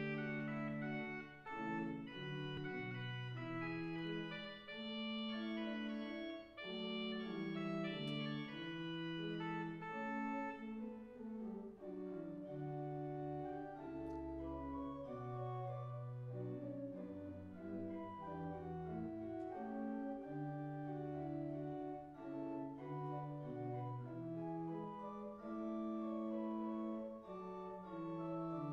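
Church organ playing a slow piece in held chords, with deep pedal bass notes. The bright upper tones drop away about ten seconds in, leaving a softer, mellower sound.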